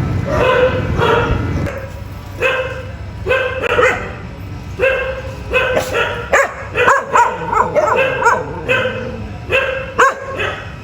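A dog barking and yipping: short, high-pitched calls repeated in quick runs.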